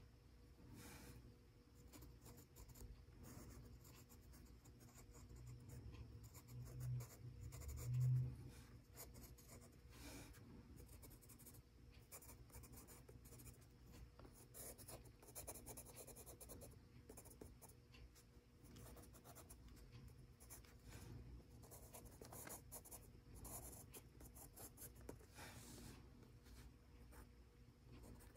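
Faber-Castell Pitt Graphite Matt HB pencil scratching faintly over gray sketchbook paper in many short, repeated shading strokes. Two soft low bumps, about seven and eight seconds in, are the loudest moments.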